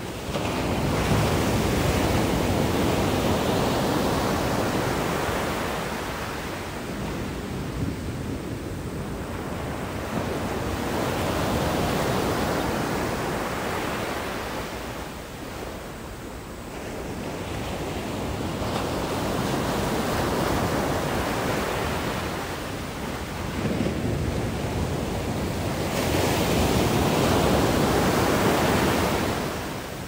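Ocean surf washing up a sand beach, each wave's rush swelling and ebbing in slow surges about every eight seconds.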